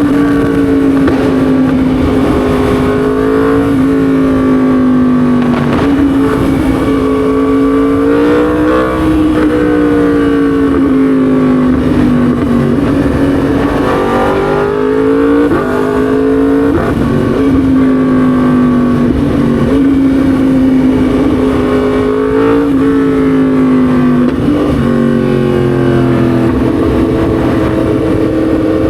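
Yamaha MT-10 SP's 998 cc crossplane inline-four engine running under way, its note repeatedly climbing and then dropping sharply, as with hard acceleration and upshifts, and easing down more slowly in between.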